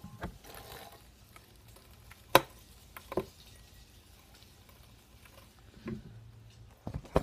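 A few separate sharp clicks and knocks from handling a cast-iron bench vise and setting a hacky sack between its jaws, the loudest about two seconds in.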